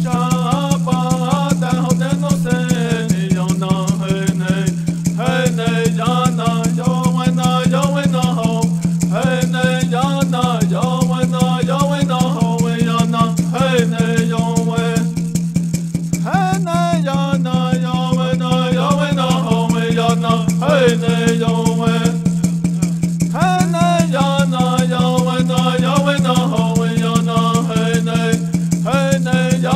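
Peyote song: men singing in phrases with short breaks, over a fast, steady beat of a water drum and a shaken gourd rattle.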